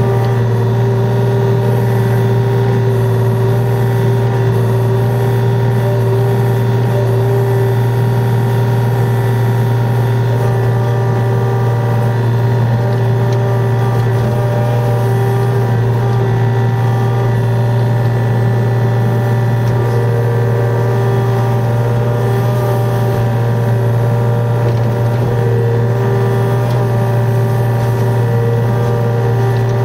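Yanmar VIO35 mini excavator's three-cylinder diesel engine running steadily at working revs, with the hydraulics driving the bucket as it digs.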